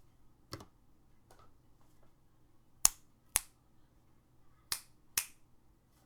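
Single keys on a mechanical keyboard with Gateron yellow linear switches and PBT keycaps, struck one at a time. A soft tap comes first, then two pairs of sharp clacks, each pair about half a second apart.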